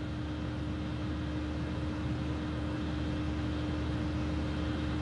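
Steady room tone: an even hiss with a low hum and one thin, steady mid-pitched tone running under it, with nothing else happening.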